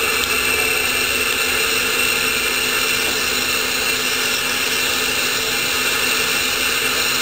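Metre-gauge steam locomotive working uphill, heard from just behind it: a loud, steady rushing noise of its exhaust and running gear, without distinct beats.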